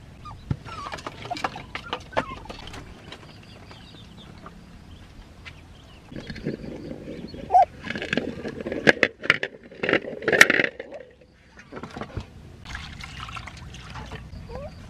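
Eggs knocking against a steel wok as they are set into it, with water splashing and pouring into the pan, busiest in the middle.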